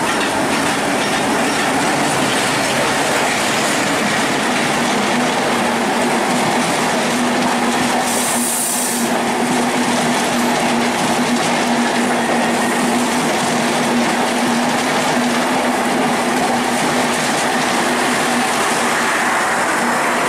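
Intercity express passenger train passing close by: the diesel locomotive and then its coaches rolling past, wheels clattering over the rail joints. A steady low tone runs underneath from about five seconds in, and there is a brief hiss around eight seconds in.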